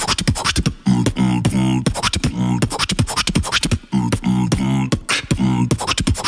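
Beatboxing: a rhythmic run of clicks and percussive mouth sounds mixed with low hummed tones, in a pattern that repeats about every three seconds.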